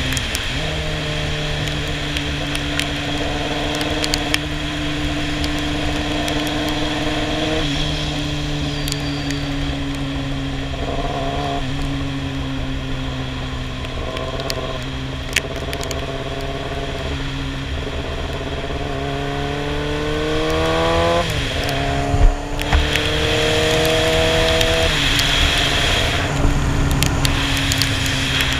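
Sportbike engine running while riding along at speed, with steady wind rush. About two-thirds of the way through, the revs climb, drop sharply, climb again, and then fall back.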